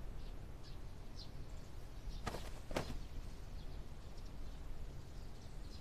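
Faint bird chirps over a low steady hum, with two quick swishing rustles close together about two and a half seconds in.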